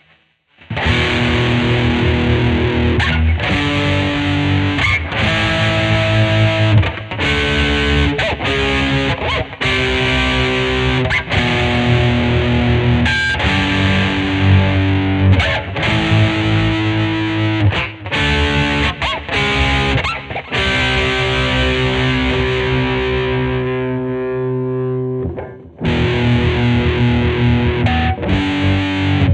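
Distorted electric guitar from a Fender Jazzmaster HS Blacktop converted into a 'Jazzblaster', strumming chords and riffs with short palm-muted stops. Near the end one chord is left to ring and fade before the playing starts again.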